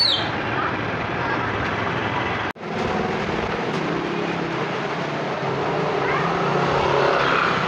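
Street ambience with motor traffic running steadily. The sound drops out for an instant about two and a half seconds in.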